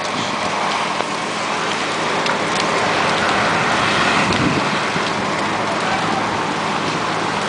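Fire hose stream spraying water into a burning house: a steady rushing hiss of water.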